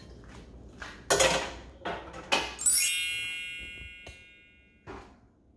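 A couple of short knocks, then a bright sparkle chime sound effect: a quick rising run of ringing tones that fades out over about a second and a half, laid over the sparkling-clean microwave shot.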